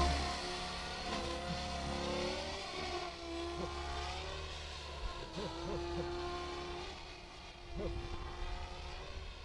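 Electric RC helicopter in flight: the whine of its brushless motor and rotors with several tones, louder with a falling pitch at the start as it passes. The pitch then bends up and down in short quick swoops as it manoeuvres.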